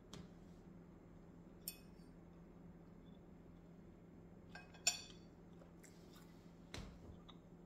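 Cutlery clinking against a plate as pancakes are cut and eaten: a few short, sharp clinks, the loudest about five seconds in.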